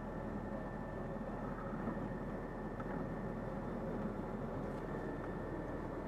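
Steady low rumble of an armoured vehicle's engine running at idle, heard from the open gun turret, with a faint steady high whine over it.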